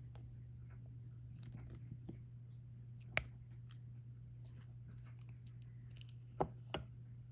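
Small clicks and taps of resin diamond drills being picked up with a drill pen and pressed onto a diamond-painting canvas. There is one sharper click about three seconds in and two close together near the end, over a steady low hum.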